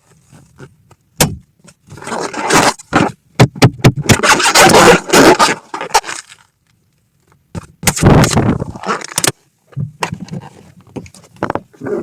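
Inflated rubber balloons being handled and burst: stretches of rubbing and scraping broken by several sharp pops, with a short silent gap about halfway through.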